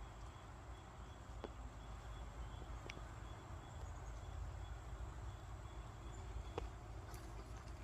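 Quiet outdoor ambience: a faint, broken high chirping like insects over a steady low rumble, with three soft clicks about a second and a half, three, and six and a half seconds in.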